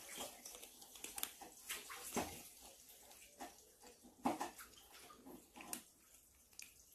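Kittens eating dry kibble from bowls: faint, irregular crunching and chewing clicks.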